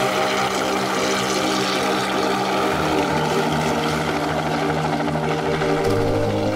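Light helicopter running as it lifts off and flies away, with background music playing under it, its held notes changing twice.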